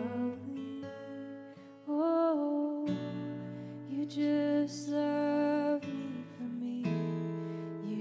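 Live band music led by acoustic guitar, with long held notes.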